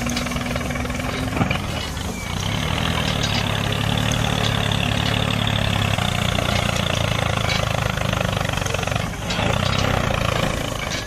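Toy tractor's small motor running steadily, a low hum under a high whine, getting louder about two seconds in and dipping briefly near the end.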